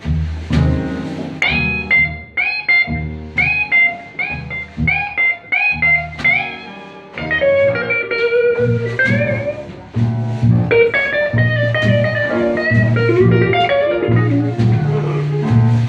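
Blues band playing live: an electric guitar solos with a high note picked and bent upward about twice a second, then breaks into a running melodic line, over a steady bass and drum accompaniment.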